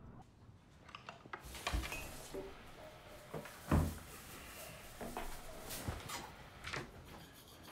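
Rustling of a jacket being handled and swung about, with several knocks and clicks and one heavier low thump about halfway through.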